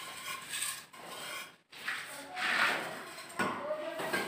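Steel plastering trowel scraping wet cement mortar on a hawk and a rendered concrete surface, in a few scraping strokes, the loudest about two and a half seconds in.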